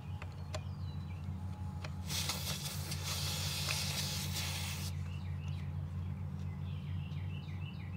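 Hiss of air escaping from a truck tire's valve stem for about three seconds, starting about two seconds in, as a cap-style tire pressure sensor is screwed down onto it. Under it runs a steady low hum, and near the end a bird chirps in quick repeated notes.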